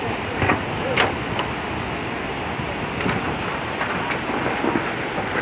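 Steady rush of the Swat River in flood, a wide, fast, muddy torrent, mixed with wind on the microphone. A few short knocks stand out, the loudest about a second in.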